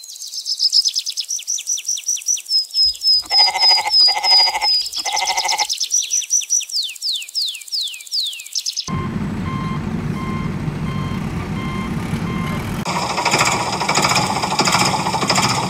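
Dubbed truck sound effects for toy trucks. First comes rapid chirping with three long horn-like blasts. Then a truck engine runs with a reversing beeper sounding about twice a second, and the engine turns rattlier a few seconds before the end.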